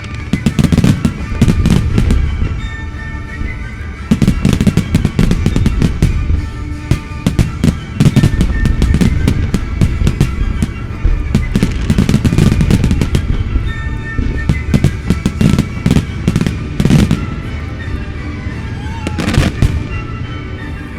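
Aerial fireworks bursting in waves of rapid, overlapping bangs and crackles with short lulls between, over music from the display's soundtrack.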